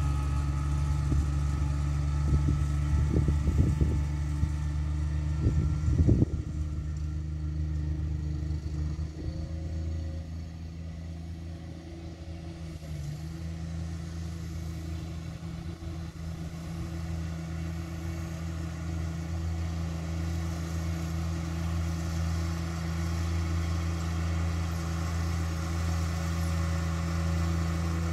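Ride-on lawn mower's engine running steadily, heard from a distance, with a few low thumps in the first six seconds. The engine grows quieter about ten seconds in, while the mower is out of sight over the crest of the hill, then gradually louder again toward the end.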